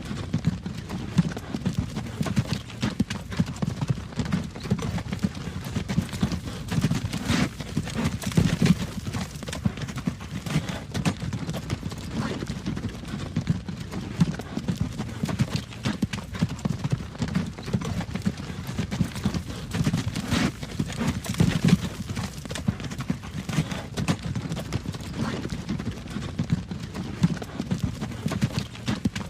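Horse-drawn wagon on a road: the horse's hooves clip-clop steadily over a continuous low rumble.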